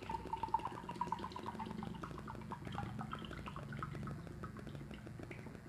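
Water poured into a steel bowl of corn flour: a quiet trickling pour for about the first two seconds, then scattered drips.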